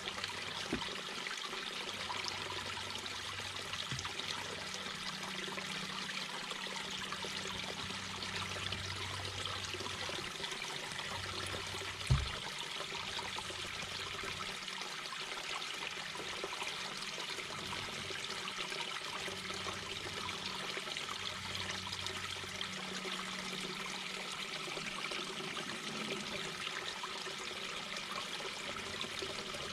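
A mountain brook babbling steadily over stones. About twelve seconds in there is one brief low thump, the loudest moment.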